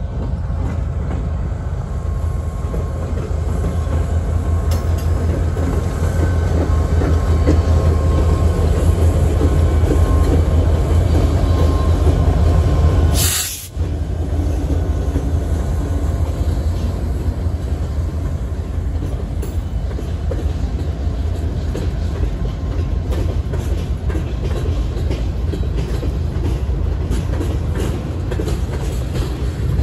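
Union Pacific freight train passing close by: the low diesel rumble of its EMD SD40-series locomotives, then the steady clatter of covered hopper cars' wheels on the rails. A sharp click and a brief drop a little after 13 seconds break the sound.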